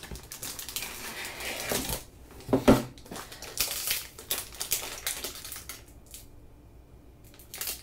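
A cardboard box being opened and a plastic-wrapped pack of dual-tip markers pulled out and handled: rustling, scraping and small clicks of cardboard and plastic packaging, with one sharper knock nearly three seconds in, quieter near the end.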